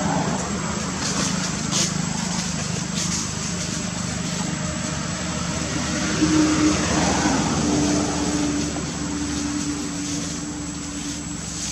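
Drone of a distant passing motor engine, steady and low, swelling louder about six seconds in with a falling pitch, then easing off.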